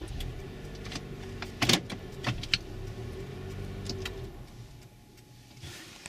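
Toyota RAV4 gear shifter clicking as it is moved into neutral, a sharp click about two seconds in and a couple of lighter ones after. Under it, a steady mechanical hum from the car fades away about four seconds in.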